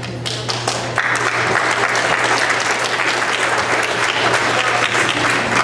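Audience applauding: a few scattered claps at first, then steady applause from about a second in.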